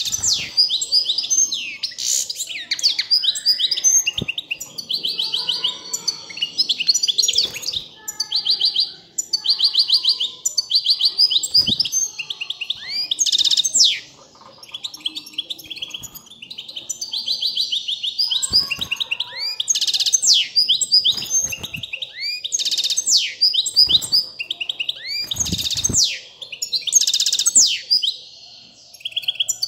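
European goldfinch singing: a long run of fast twittering trills and buzzy notes with a few short breaks, the song of a bird in breeding condition. A few short knocks sound between the phrases.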